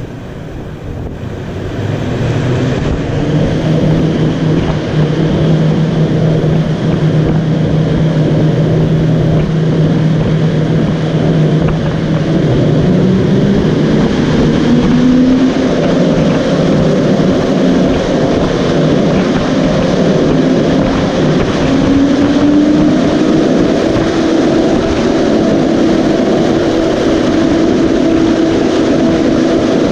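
Large propeller fan of a typhoon simulator blowing strong wind: a loud, steady rush of air with a humming tone. About twelve seconds in, the hum climbs in steps to a higher pitch as the fan is sped up toward typhoon-force wind.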